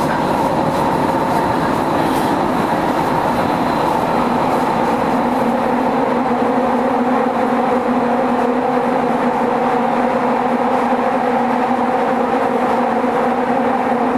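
Kyoto Municipal Subway Tozai Line 50 series train running underground, heard from inside the car: a steady loud rumble of wheels and running gear with humming tones that shift about five seconds in.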